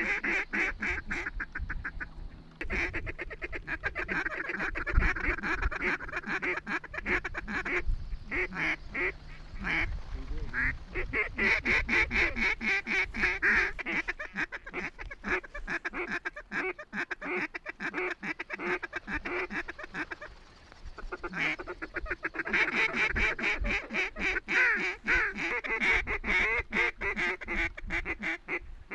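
Huge flocks of ducks and geese calling overhead: a dense, unbroken chorus of quacks and honks, with a brief lull about two-thirds of the way through.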